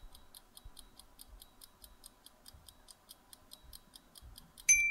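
Quiz countdown-timer sound effect: a clock ticking about five times a second, which stops near the end as a bright ding rings out and fades, marking time up.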